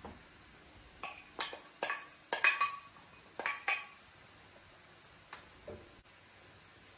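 Sharp clinks and knocks of kitchenware, a glass bowl and utensil against a frying pan, as shredded cabbage is tipped and scraped into the pan; a quick cluster of clinks from about one second in to nearly four seconds in, loudest in the middle, then only a couple of faint ticks.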